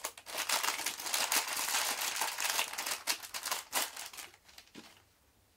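Clear plastic bag crinkling as small miniature figures are handled and taken out of it, dying away near the end.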